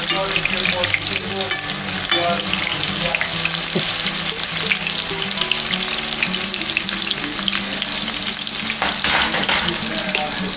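Chicken-breast and zucchini fritters sizzling and crackling steadily in hot oil in a frying pan, with forks now and then touching the pan as they are turned, and a short clatter about nine seconds in.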